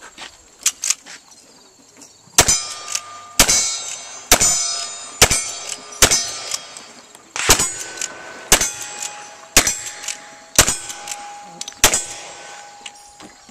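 Ten black-powder rifle shots, about one a second with a slightly longer pause midway, each followed by the clang and ring of a steel target being hit.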